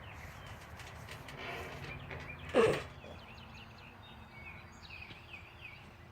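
Small birds chirping in short repeated high notes over a low outdoor rumble, with one short, loud, noisy blast about two and a half seconds in.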